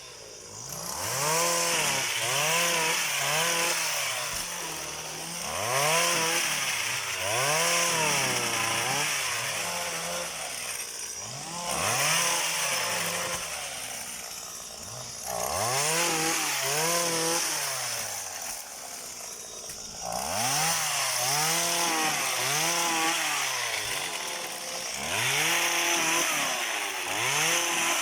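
Small engine of a motorised oil palm pole pruner revving up and down again and again, about once a second, in several runs with short easings between them.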